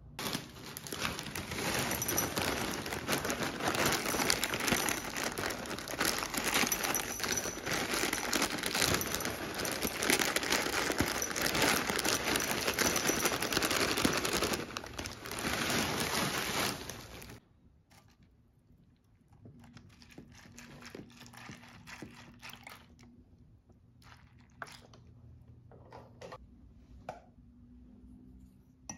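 A plastic cereal bag liner crinkling as ring-shaped oat cereal pours out of it into a ceramic bowl: a dense, loud crackle that stops suddenly about 17 seconds in. After that the sound is much quieter, with scattered light clicks and taps.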